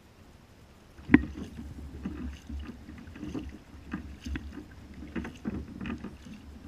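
Knocks, bumps and rustling of gear on a fishing kayak: one sharp knock about a second in, then irregular lighter knocks, with a low rumble underneath.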